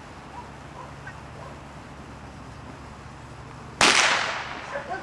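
A single loud, sharp crack about four seconds in, ringing off over about a second, after a quiet, steady background.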